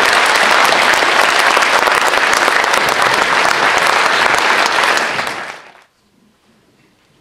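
Audience applause, dense steady clapping from a roomful of hands, fading out and stopping about six seconds in.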